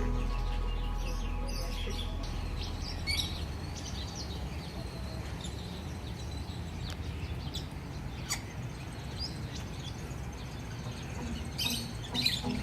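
Birds chirping every now and then: short, high calls over a low, steady background rumble.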